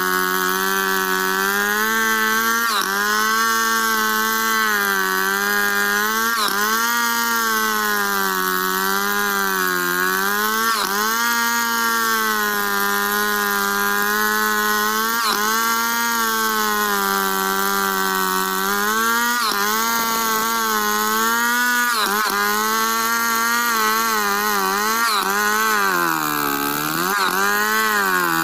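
Stihl two-stroke chainsaw held at full throttle, ripping lengthwise down a squared log. The engine pitch sags and recovers every few seconds as the chain bogs in the cut, and it drops deepest near the end before picking up again.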